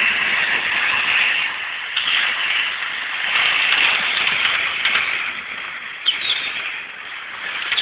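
Hornby InterCity 125 model train running on its track: the steady hissing whirr of the small electric motor and wheels, swelling and fading as it passes close by, with a couple of faint clicks.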